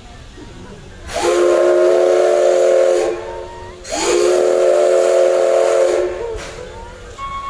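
Steam whistle of the C11 325 steam locomotive blown in two long blasts of about two seconds each, several notes sounding together over a hiss of steam, each blast sliding up slightly as it opens.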